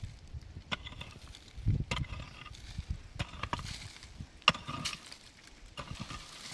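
Irregular sharp knocks, about six spread over several seconds, the loudest about halfway through. Low scuffling and handling noise runs between them.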